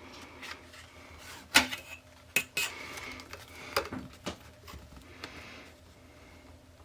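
Several sharp metallic clacks and some light scraping as a metal straightedge and hobby blade are set down and handled on a work surface, with the biggest knocks around one and a half to two and a half seconds in.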